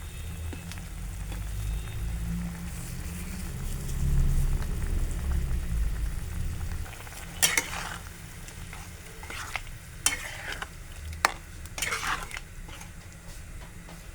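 Spatula stirring a thick, simmering pea-and-paneer curry in a pan over a steady low sizzle; in the second half come several scraping strokes and a few sharp taps of the spatula against the pan.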